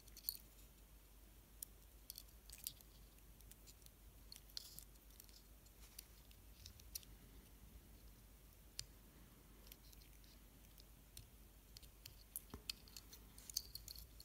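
Near silence broken by faint, irregular small clicks and light scratches of fingers handling small plastic and metal DJI Mavic Pro gimbal parts as they are fitted together, with a cluster of clicks near the end.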